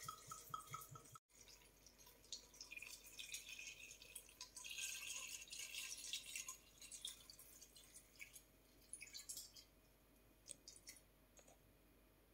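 Clear white liquor poured from a bottle into a glass bowl of chopped quinces and apples: a faint splashing trickle into the liquid, loudest around the middle and thinning out towards the end.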